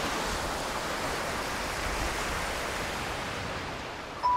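Sea surf washing on a beach, a steady hiss of waves that eases slightly towards the end. Just before the end a single high chime note starts and rings on.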